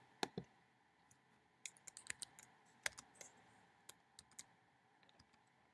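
Faint computer keyboard keystrokes and mouse clicks: two clicks at the start, then irregular taps in small clusters over the next few seconds.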